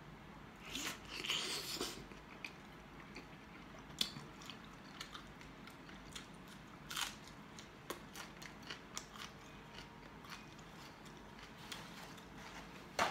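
A person biting and chewing boiled chicken and vegetables close to the microphone, with a louder burst of mouth noise about a second in and scattered small clicks and smacks after. A sharp rustle near the end comes from a paper towel roll being handled.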